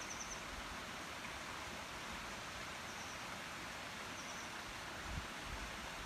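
Steady rush of water from a mountain stream, with a small bird giving three short high chirps and a soft low bump about five seconds in.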